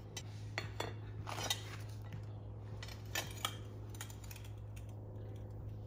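About half a dozen light metallic clinks and taps in the first few seconds: steel tongs, crucible and steel ingot molds knocking as casting gear is handled on firebricks. A steady low hum runs underneath.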